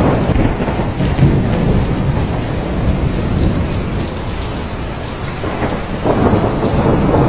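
Thunderstorm: steady heavy rain with a deep rolling thunder rumble underneath. The rumble eases through the middle and swells again near the end.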